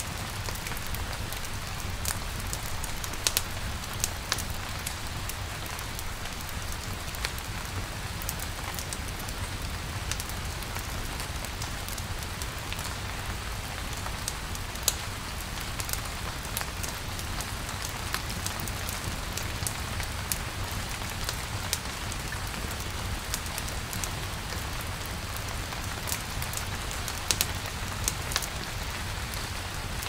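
Steady rain falling: a continuous even hiss, with scattered sharp ticks at irregular moments.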